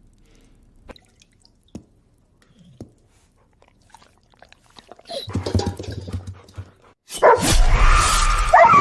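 A dog whining and barking, with short rising cries near the end. For the first five seconds there are only faint clicks; then a louder noise with a low hum comes in, and a loud rushing noise starts about seven seconds in.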